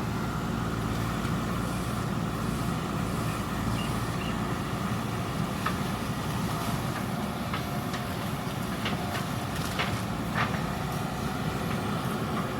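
JCB 3DX backhoe loader's diesel engine running steadily under work, with several short metallic knocks in the second half.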